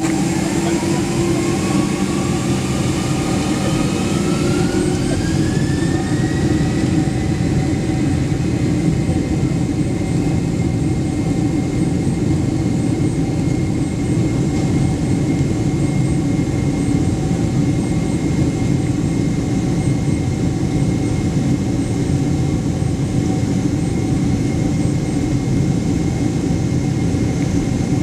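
Aircraft engines spooling up to takeoff power: a whine rises in pitch over the first several seconds, then holds steady over a loud, continuous rumble.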